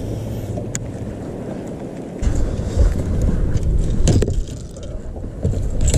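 Wind buffeting the microphone as a low rumble that grows louder and gustier about two seconds in, with a few sharp clicks.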